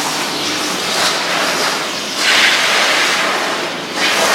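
Davis ProPet pet-washing machine spraying shampoo-laced water through its hose onto a small dog's coat: a steady rushing hiss that swells for about a second, about two seconds in.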